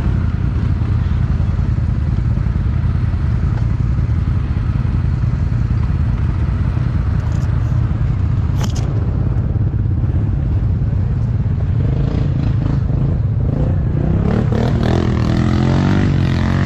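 ATV engine running hard under load, churning through deep mud, with a sharp knock about halfway through.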